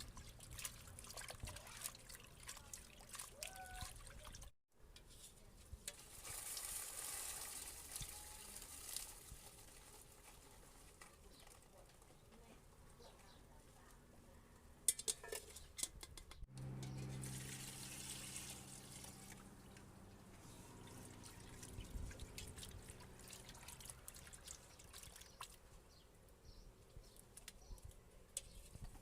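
Kitchen preparation sounds: water trickling and pouring, with scattered clicks and taps. A steady low hum comes in after a cut about halfway through.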